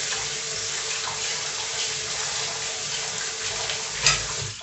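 Kitchen sink faucet running steadily as hands are rinsed under it, with a sharp knock about four seconds in; the water cuts off near the end.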